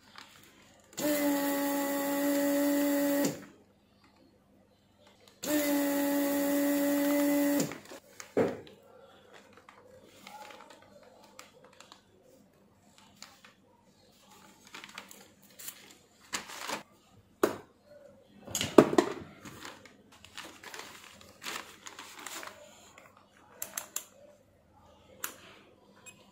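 Vacuum pump of a Weller desoldering iron running twice, about two seconds each time, with a steady hum over a hiss as it sucks molten solder from the board's joints. Afterwards come scattered light clicks and knocks of tools on the circuit board.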